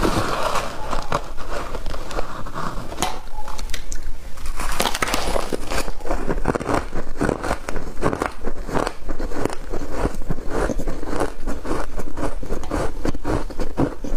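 Shaved ice being chewed and crunched in the mouth: a dense, irregular run of crisp crunches, several a second, thickest from about six seconds in.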